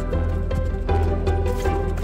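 Background music with a steady beat and held melody notes over a strong bass.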